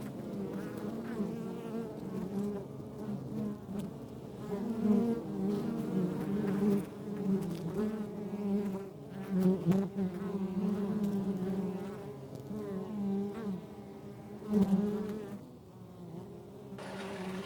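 Honeybees buzzing around a hive: a steady drone of many wings, with single bees passing close to the microphone several times, each a brief louder buzz that wavers in pitch.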